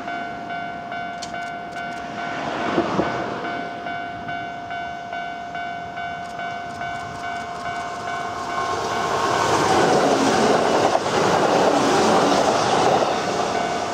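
Kintetsu 12200 series limited express electric train approaching and passing close by. Its wheel and running noise swells from about nine seconds in and is loudest near the end, over a steady electronic ringing that pulses about twice a second.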